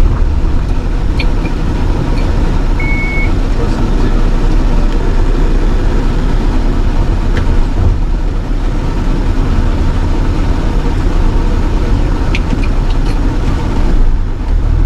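Steady low rumble inside the cabin of an MG car moving slowly as it is turned and maneuvered: engine and road noise. One short electronic beep sounds about three seconds in.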